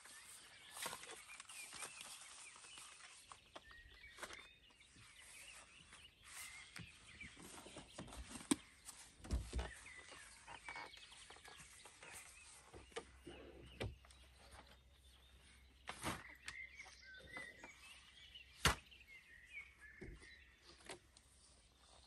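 Scattered knocks and clicks, the loudest about a third of the way in and again near the end, over a faint outdoor background with occasional bird chirps.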